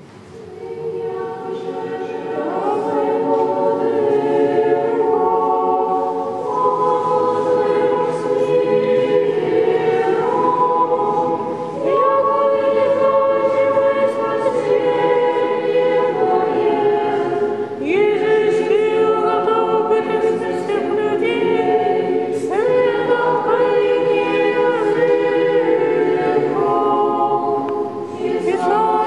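Small church choir of women's and young men's voices singing an Orthodox liturgical chant unaccompanied. The voices move together in long held notes, phrase after phrase.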